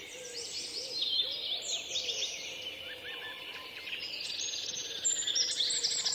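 Several songbirds singing at once, with overlapping chirps and whistled phrases. A fast, high trill joins about four seconds in.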